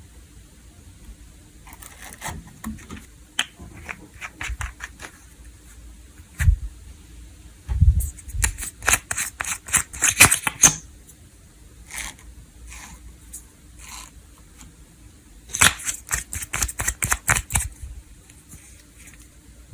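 Crunchy snow-crispy slime being squeezed and pressed by hand, crackling and popping in quick runs of sharp clicks, three times, with a few soft thumps.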